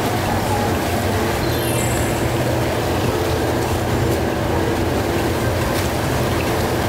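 Steady mechanical rumble and hum of a large commercial kitchen's equipment, with a brief falling run of high electronic tones about a second and a half in.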